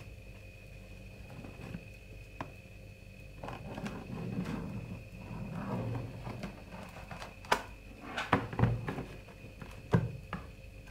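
A large cardboard box being handled and shifted on the floor: rubbing and scraping from about three seconds in, then several sharp knocks near the end.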